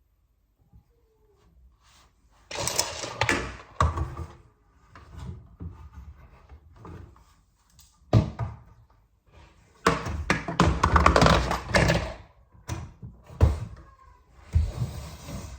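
Handling of a wooden cabinet door and its hinges: a run of knocks, thuds and scraping, with one sharp knock about eight seconds in and the longest, loudest scraping stretch soon after it.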